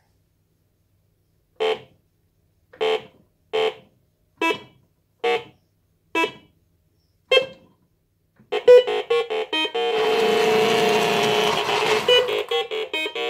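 1980 MB Bigtrak's keypad beeping seven times, about once a second, as a program is keyed in. Then a quicker run of beeps, and for the last few seconds the toy's electric drive motors run steadily as it sets off and turns, a bit jerky in the turn.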